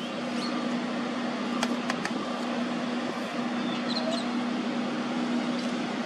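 Steady outdoor background hum: a constant low tone over an even hiss, with two faint clicks about a second and a half in and a few faint high chirps around four seconds in.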